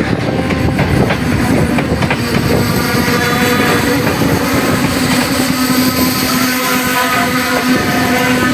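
A train running on the track, with a dense rolling clatter of wheels on rails; from about two seconds in a steady engine drone rises above it.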